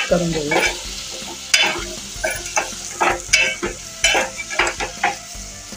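Steel ladle stirring and scraping pieces of drumstick pod through sizzling masala in a metal pot, with irregular clinks and scrapes against the pot over the frying hiss.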